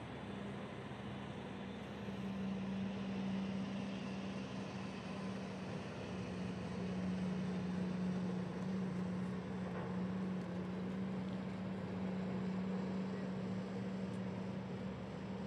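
Steady drone of distant heavy diesel mining machinery working in the pit: a constant low hum over a rushing background noise.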